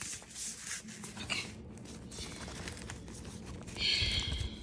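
Handling noise of a paper gift bag and a satin drawstring pouch: faint scattered rustles and light clicks, then a louder rustle with a soft thump near the end as the pouch is set down on the counter.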